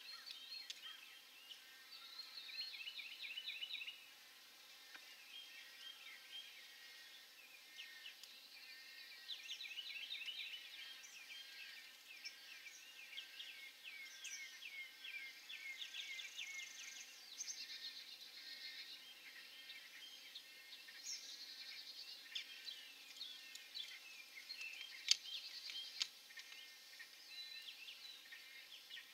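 Wild birds calling and singing, with several series of quick repeated chirps, over a faint steady background hiss. Two short sharp clicks come near the end.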